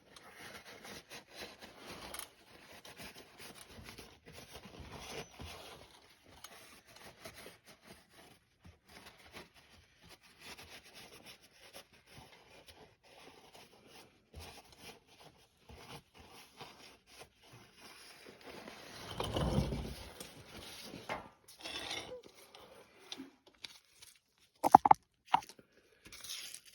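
Light, irregular scraping and rubbing as the mechanic goes around the transmission's pan mounting surface by hand, with a few sharp clicks near the end.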